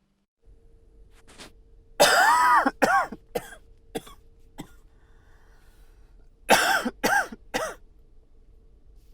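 A man's dry cough with a slight bark, in two fits: a long cough and two or three short ones about two seconds in, then three quick coughs about six and a half seconds in.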